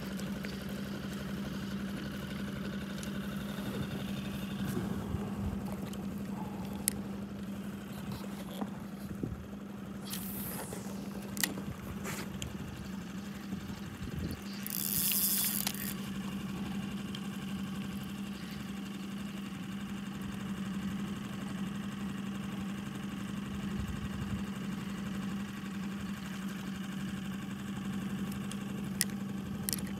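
Boat motor running steadily with a constant hum, pushing an inflatable boat at slow trolling speed. A few light clicks and a brief hiss about halfway through.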